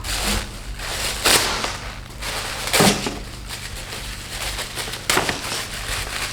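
Packaging being handled and opened: crinkling plastic and cardboard, with three louder rustles.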